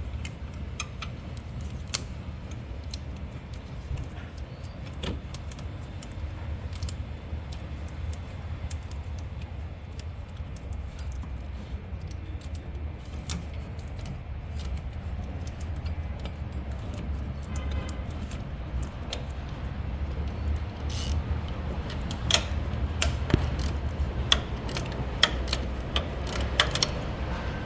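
Metal hand tools clinking and clicking against metal while the drive belt is being loosened with a 14 mm wrench, with a denser run of sharp clicks in the last few seconds, over a steady low hum.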